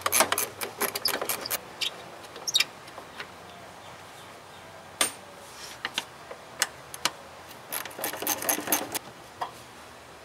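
Hand ratchet clicking in quick bursts with metal clinks, as the bolts around the perimeter of a heater box on a truck firewall are worked loose.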